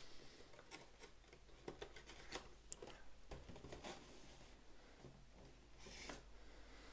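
Near silence with faint, scattered small clicks and a brief rustle around six seconds in: a board game box and its contents being handled.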